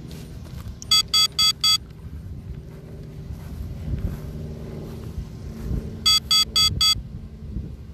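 Drone low-battery alarm: two sets of four quick, shrill electronic beeps about five seconds apart, over a steady low rumble.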